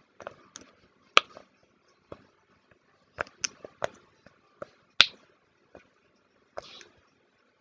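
Fidget toys being handled: irregular clicks and taps, two sharper, louder clicks about a second in and about five seconds in.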